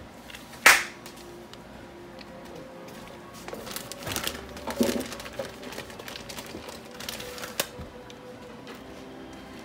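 A sharp click about a second in, then scattered taps and rustles from hands working over disposable aluminium foil pans while shredded cheese is sprinkled on, with faint background music underneath.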